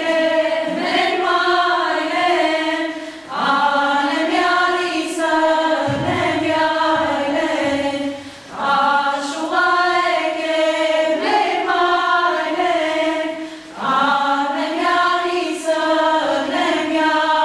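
A group of women singing a dance song together on one melody, its short phrases repeating, with brief breaks every five seconds or so.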